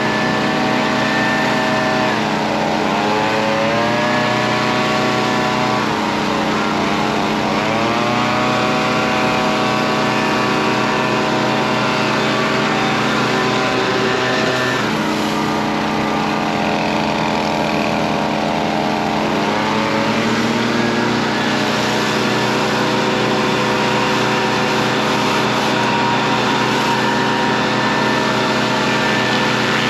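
Stihl RB 400 gas pressure washer engine running steadily, its pitch dipping briefly and climbing back up about four times.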